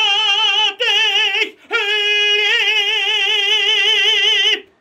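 Male operatic tenor singing unaccompanied: two short high notes with brief breaks, then a long high note with wide vibrato held for about three seconds, cutting off abruptly near the end.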